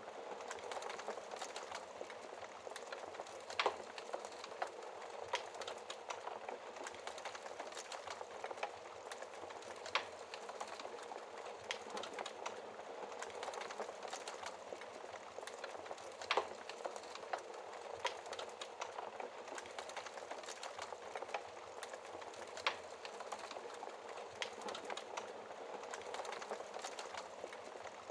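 Wood fire crackling under a steady hiss, with a handful of sharper pops spaced several seconds apart.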